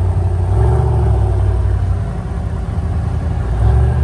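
Lifted off-road Jeep's engine running at low speed as it rolls past on sand, a steady low rumble that swells slightly twice.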